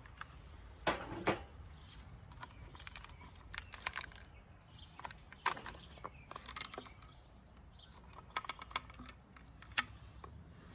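Scattered light clicks and knocks of small trimmer parts and hand tools being handled, with sharper knocks about a second in, near the middle and near the end.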